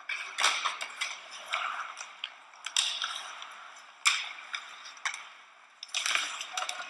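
Ice hockey play: skates scraping the ice, with sharp clacks and knocks of sticks, puck and boards, the clearest about four seconds in and a cluster around six seconds as players battle along the boards.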